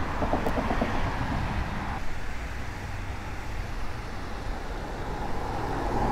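Spinning reel being cranked to bring in a hooked fish, a quick run of even ticks in the first second, over a steady low rumble.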